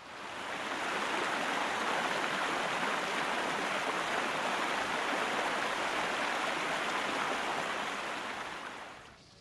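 Fire extinguisher spraying, a sound effect: a steady hiss that fades in over about a second and fades out near the end.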